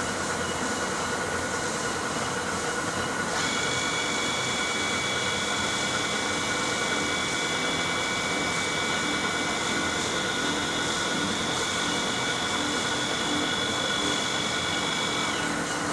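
Large Weipert heavy lathe running under power: a steady machine hum with a high whine that comes in about three seconds in and drops away just before the end, and a faint regular throb in the second half.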